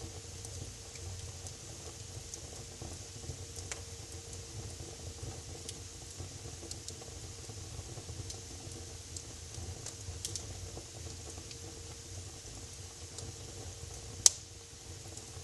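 Wood fire burning in a fireplace: a steady low hiss and rumble with scattered small crackles, and one loud sharp pop near the end.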